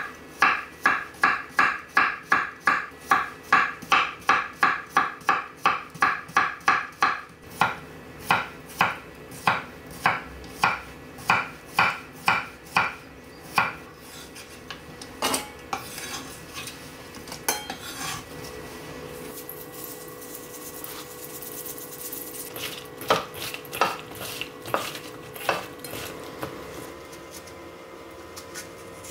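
A kitchen utensil striking a dish over and over with a short ringing clink, about three to four times a second at first, then slower and more spread out. Later come scattered clinks and a faint hiss.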